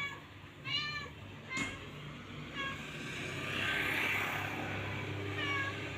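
A cat giving a few short, faint meows over a steady low hum of traffic, with a vehicle passing by in the middle and a single click about one and a half seconds in.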